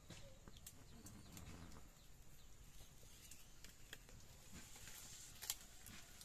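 Faint crackling of a small wood fire, with scattered sharp pops and light knocks of sticks being pushed into it; one louder pop near the end.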